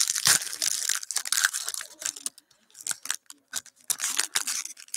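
Foil wrapper of a baseball card pack being torn open and crinkled by hand, in short crackly bursts with a brief lull partway through.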